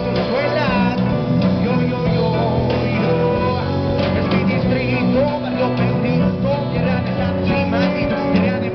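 Live rock band playing: electric guitar and bass guitar with a singer's voice over them.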